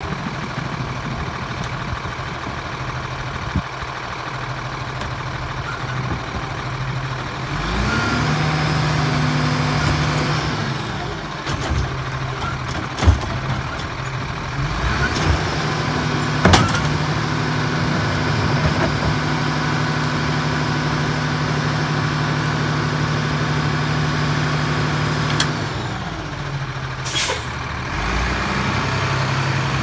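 Lodal side-loader garbage truck's diesel engine idling. It speeds up twice to a higher steady pitch, briefly about 8 s in and for about ten seconds from about 15 s in, as the hydraulics run. There are sharp metal bangs as a cart is tipped into the hopper, and a short air hiss near the end.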